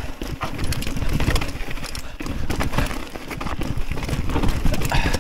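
Wind rumbling on the microphone, with irregular knocks and clatter as a mountain bike and rider move along a mountain path.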